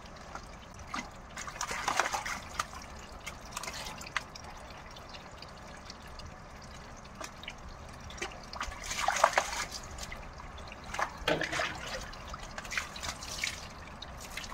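Water splashing in short bursts, several times, as a pet crow bathes in a basin of water, over a steady trickle of water running into a metal basin. Near the end water is poured from a plastic dipper.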